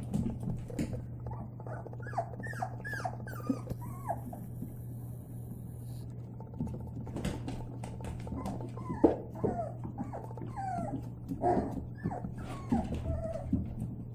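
White Labrador puppies whimpering and yipping: many short, high squeaks that fall in pitch, in two runs with a pause of a few seconds between, over a steady low hum.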